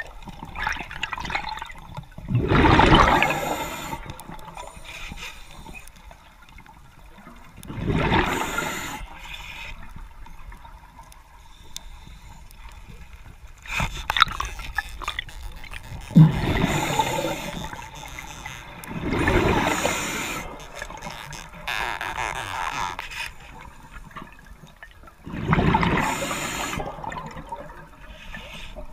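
A diver breathing underwater through a regulator: loud gurgling bursts of exhaled bubbles, one every few seconds, over a steady watery hiss. A couple of sharp clicks come a little past the middle.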